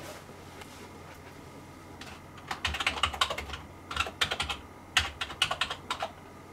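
Typing on a computer keyboard: three quick runs of keystrokes, starting about two and a half seconds in, as a user name is typed.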